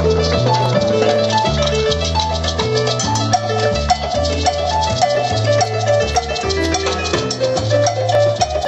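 Live Cuban salsa band playing an instrumental passage: a repeating bass line, a short repeated keyboard figure and hand percussion with a steady beat.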